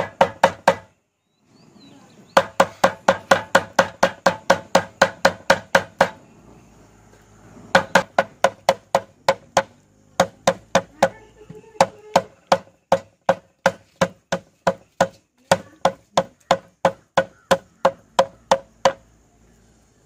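Cooked beef leg bone knocked end-down against a stainless steel tray again and again to shake out the marrow: rapid, even knocks about four or five a second, in several runs with short pauses, each hit making the metal tray ring briefly.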